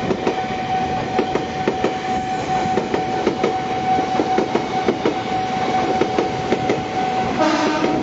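JR 205 series electric commuter train passing close by, its wheels clicking quickly and unevenly over the rails. A steady high tone sounds throughout, and a short pitched sound comes in a little before the end.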